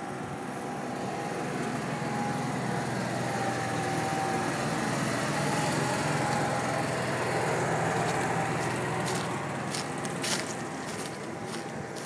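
Motorhome's onboard generator running, a steady engine hum that grows louder toward the middle and eases off near the end. A few clicks sound near the end.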